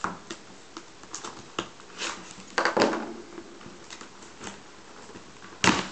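Trading-card box packaging being worked open by hand: scattered clicks and scratchy rustles, a longer rasping tear a little before halfway, and one sharp loud snap near the end.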